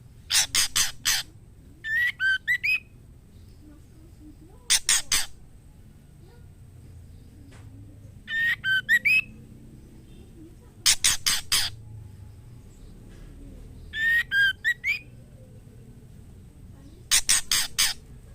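Female white-rumped shama calling to a male: bursts of three or four quick harsh notes alternating with short whistled phrases that slur upward, repeated about every three seconds.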